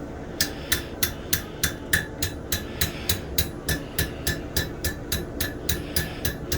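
Hand hammer striking hot steel on an anvil in a quick, steady rhythm, about three blows a second, each with a short metallic ring. The blows are forging a knife blank.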